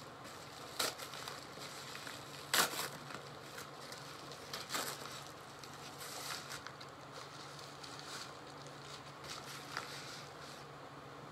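Mail package being opened by hand: packaging crinkling and rustling, with sharp crackles about a second in, near three seconds in and near five seconds in, the loudest near three seconds.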